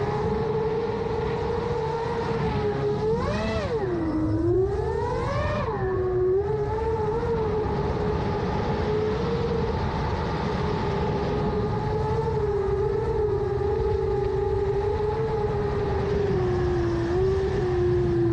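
Brushless motors and propellers of a 7-inch FPV quadcopter with 2806-class motors, whining at a steady pitch. About three to six seconds in, the pitch swoops quickly down and up twice.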